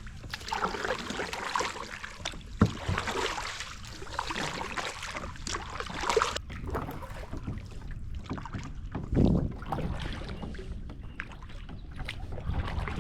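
Water splashing and sloshing around a kayak, with a sharp knock about two and a half seconds in.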